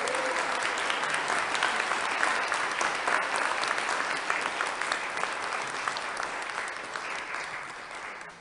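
A congregation applauding with dense, steady clapping that tapers off near the end.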